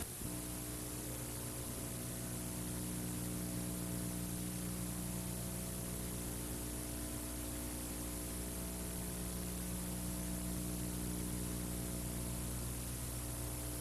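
Steady electrical mains hum with a faint hiss, unchanging throughout, with no tool or handling sounds.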